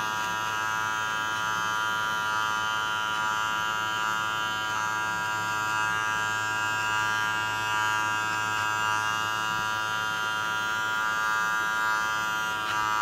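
Electric hair clipper running with a steady buzz and its blade lever open, used to fade short hair.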